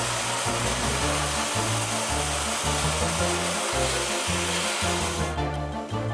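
Vacuum cleaner running with a steady motor noise, cutting off suddenly near the end, over background music with a bass line.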